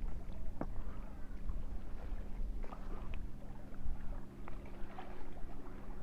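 Wind rumbling on the microphone under a faint steady low hum, with scattered small clicks and crunches of eating.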